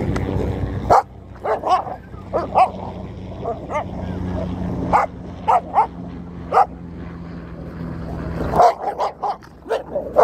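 Pit-bull-type dogs barking and yipping in rough play: short, sharp barks at irregular intervals, coming in a quick run near the end.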